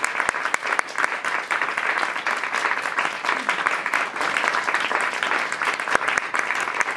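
Audience clapping steadily: applause at the end of a performance.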